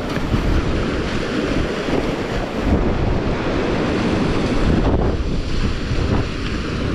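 Sea surf breaking and washing over shore rocks, with wind rumbling on the microphone.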